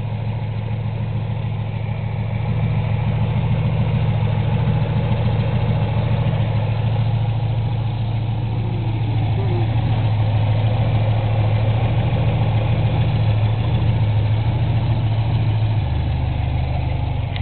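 MGB GT's 1860cc B-series four-cylinder engine, breathing through a single Weber 45 DCOE carburettor on open ram pipes, idling steadily. Its note shifts slightly near the end.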